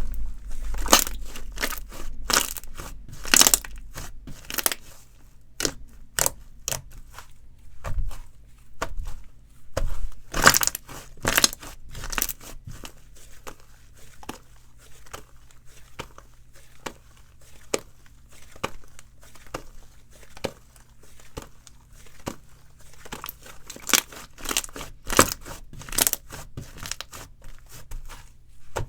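Hands squeezing and poking slime, making irregular flurries of sticky pops and crackles.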